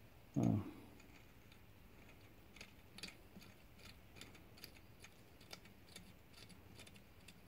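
Faint, uneven metallic clicks, about two a second, as a small hand tool turns a threaded plug down into a DOD oil port in a GM 5.3 V8 block to seat it flush. A brief low vocal sound about half a second in.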